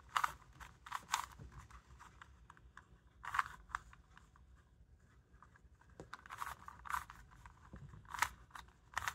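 Plastic clicking and clacking of a 3x3 puzzle cube's layers being turned by hand, in quick bursts of turns with a lull about halfway through.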